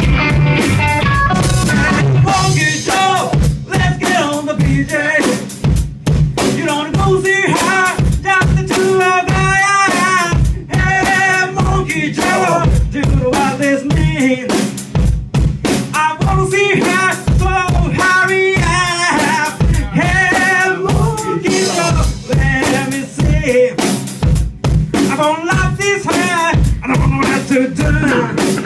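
Rock band playing live with no vocals: a drum kit keeps a busy beat under electric guitars and bass.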